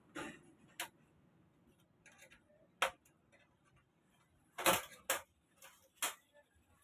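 Six or so sharp clicks and taps at irregular intervals, the loudest nearly three seconds and nearly five seconds in: parts of an LED TV's backlight assembly being handled during repair.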